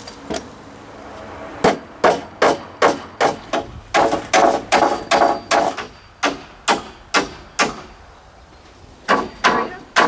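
Hammer driving nails through a wooden support board into deck joists: a run of sharp, even blows, two to three a second, a short pause near the end, then more blows.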